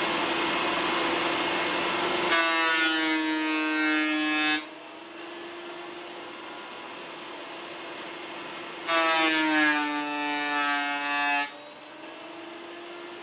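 Ryobi AP1301 benchtop thickness planer, with straight high-speed-steel knives, cutting a board twice. Each pass is an ear-splitting cutting scream of a few seconds whose pitch sags as the motor takes the load. The first pass is at the start and the second about nine seconds in. Between the passes the planer runs on at a steady, much quieter no-load hum.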